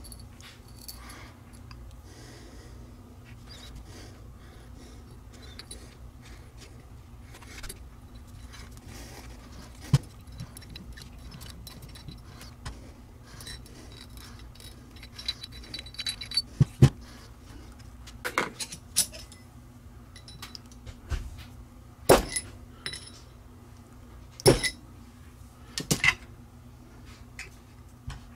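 Scattered metallic clinks and knocks of small steel parts and tools being handled: Helicoil thread inserts, the insert installing tool and the axle bearing hub being turned and set down. The clinks come more often and louder in the second half, over a steady low hum.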